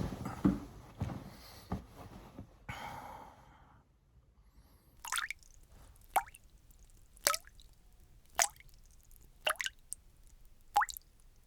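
Shuffling and a few knocks fade out over the first four seconds. Then single water drops fall at an even pace, about one every 1.1 seconds and six in all, each a short plink falling in pitch.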